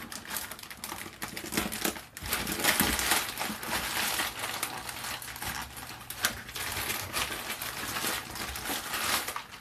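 Plastic courier mailer being slit open with a hobby knife and pulled apart, the plastic crinkling and rustling with many small crackles throughout.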